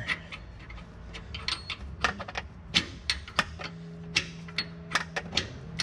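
Irregular metallic clicks and taps as a long pivot bolt and washer are worked by hand through a suspension upper control arm and its mount. A low steady hum runs under the clicks for about two seconds in the middle.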